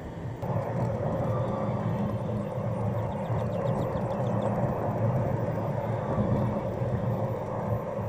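Golf cart driving along: a steady hum from its motor and drive with a steady mid-pitched whine, which starts just after the beginning.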